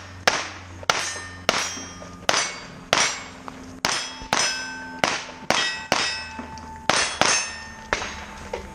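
A shooter firing a rapid, steady string of about a dozen shots at steel plates, roughly one shot every 0.7 seconds. Each shot is followed by the clang and ring of the struck steel target.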